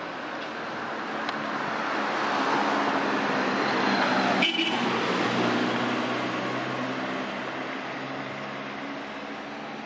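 A road vehicle passing by, its engine hum and tyre noise swelling to a peak about four seconds in and then slowly fading away.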